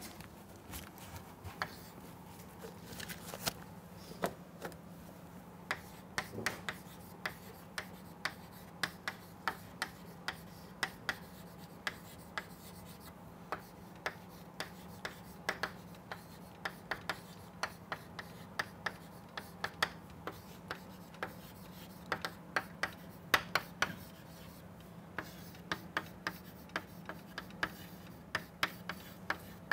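Chalk writing on a blackboard: a long run of short, sharp taps and scratches as words are written out by hand, over a faint steady hum.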